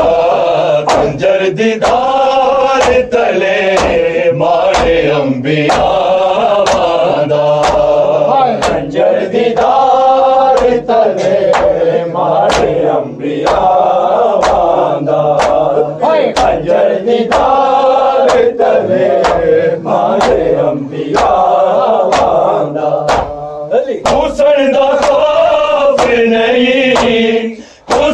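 Male voices chanting a mourning lament (noha) in a repeated melodic line, over a steady beat of sharp strikes that keep time. The chant breaks off briefly near the end, then resumes.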